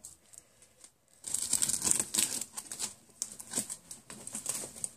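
Plastic bags and packing crinkling and rustling as hands rummage through a cardboard shipping box. It starts about a second in and goes on as a dense, irregular crackle.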